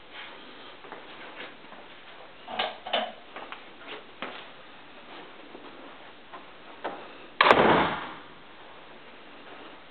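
A few soft clicks and knocks, then one loud thump about seven and a half seconds in that dies away quickly.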